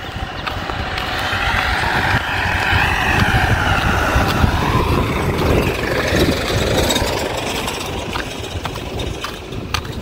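A motor vehicle passing on the road, its engine and tyre noise rising to a peak about halfway through and then fading away.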